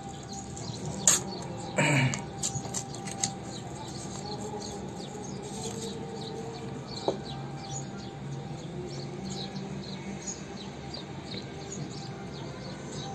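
Small clicks and rustles from hands handling a GoPro action camera and its case, the sharpest about one second, two seconds and seven seconds in. Birds chirp faintly in the background over a steady low hum.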